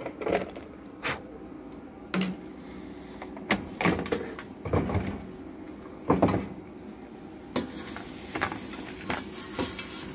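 Scattered knocks and clunks of an air fryer basket being pulled out and handled beside a bowl, ending with fried chicken pieces tipped from the basket into the bowl.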